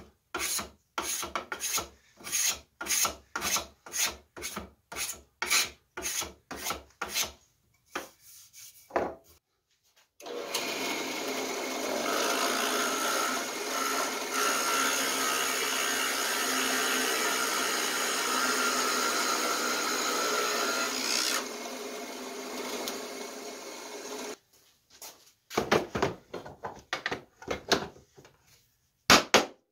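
Stanley No. 60 combination spokeshave cutting strokes along the edge of a wooden rocker, about two strokes a second, shaving a slight crown. About ten seconds in, a drill press starts, runs steadily while drilling the rocker, and stops about fourteen seconds later. A few irregular wooden knocks follow near the end as the chair parts are fitted together.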